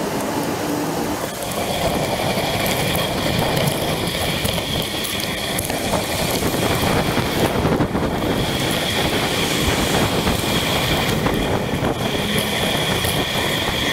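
Steady rolling noise of a Brompton folding bicycle riding on a wet road, with tyre hiss and spray. A high whine comes and goes above it, dropping out twice.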